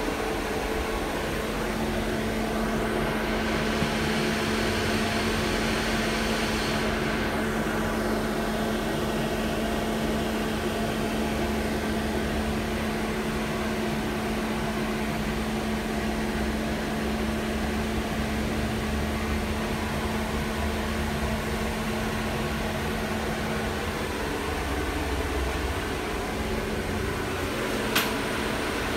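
Interior running noise of an LM-68M3 tram in motion: a steady rumble and hiss from wheels on rails, with a steady low hum from the car's equipment that drops away near the end. There is a single sharp click about a second before the end.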